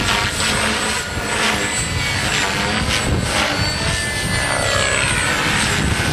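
Furion 450 radio-controlled helicopter flying aerobatics: a steady high-pitched whine with a lower tone that shifts in pitch as it manoeuvres, and repeated whooshes from the rotor blades.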